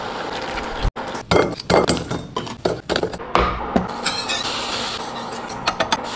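Metal whisk and utensils clinking and scraping against a stainless steel pan in a run of quick, irregular strikes.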